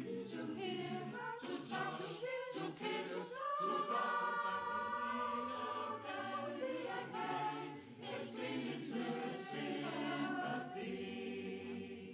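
Mixed choir of men's and women's voices singing, with long held chords.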